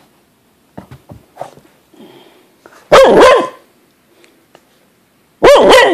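A dog barks loudly twice, about two and a half seconds apart. The owner takes them as the dog demanding that she fetch the toy it can't reach under the furniture.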